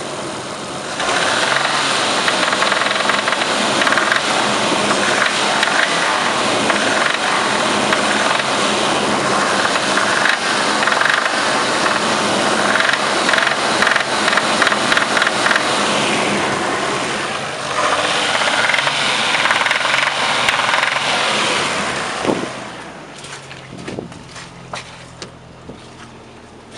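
Engine running loud with a knock, which the owner takes for a fault inside the engine. About 22 seconds in it drops to a much quieter low running sound with a few clicks.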